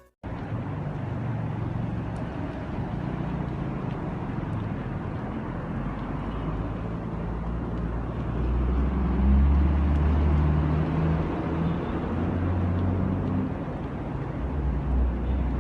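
Motor vehicle engine running, with a low hum that grows louder about halfway through, over a steady rushing noise.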